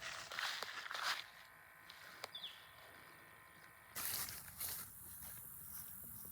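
Short bursts of rustling and scuffing handling noise, with a single sharp click a little after two seconds, over faint outdoor background sound.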